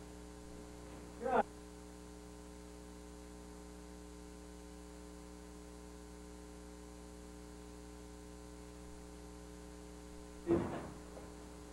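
Steady electrical mains hum on the recording, a stack of constant buzzing tones. It is broken by two short louder sounds, one about a second in and one near the end.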